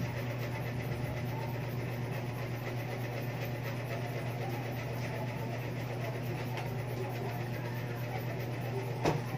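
Steady low mechanical hum with one brief knock near the end.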